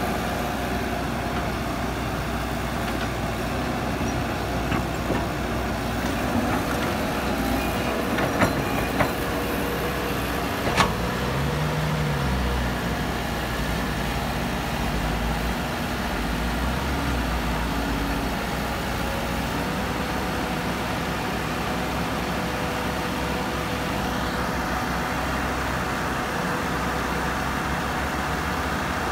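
Caterpillar hydraulic excavator's diesel engine running steadily under load while it digs and swings, with a steady whine and a few sharp metallic knocks in the middle stretch.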